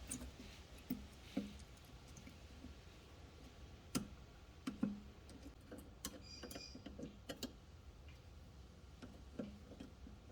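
Faint, irregular small clicks and taps of metal parts being handled and fitted at a motorcycle's rear brake caliper, with a brief light metallic ring about midway.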